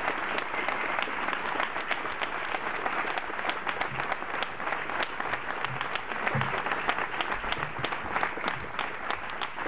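A crowd applauding steadily: many hands clapping together in a dense, even patter with no break.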